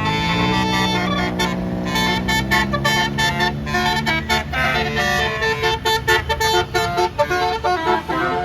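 A bus's basuri multi-trumpet air horn playing a quick melody: it opens with a rising slide, then steps between short notes several times a second, over the low rumble of the bus.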